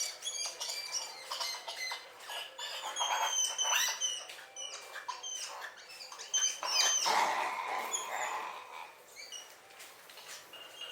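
Excited brown spider monkeys calling back and forth in several kinds of calls: thin high whistles and chirps, sharp clicks, and a louder drawn-out arching call about seven seconds in.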